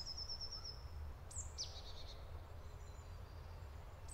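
Faint high-pitched songbird calls in woodland: a short fast trill near the start, then quick downward-sweeping chirps about a second and a half in and again at the end, over a low steady rumble.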